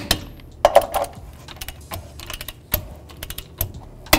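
Torque wrench ratcheting on wheel lug nuts in quick, irregular clicks, with a few louder, sharper clicks among them, as the nuts are tightened to 80 foot-pounds.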